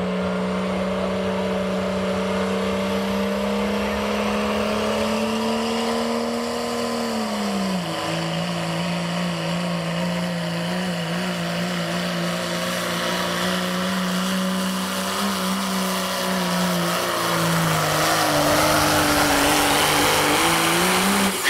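A diesel 4x4 pickup truck in the 2.6 smooth-bore turbo class pulling a sled at full throttle. The engine drones steadily, drops in pitch about seven or eight seconds in and again later, then rises briefly and cuts off near the end.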